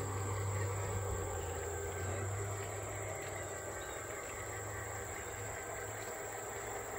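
G-scale model Western Maryland BL2 diesel locomotive and slug running with a freight train on an outdoor garden railway, giving a steady low hum that eases a little about three seconds in. Insects chirp steadily in the background.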